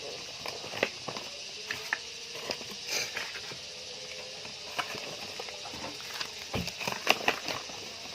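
Scattered light clicks and knocks at irregular intervals over a steady hiss.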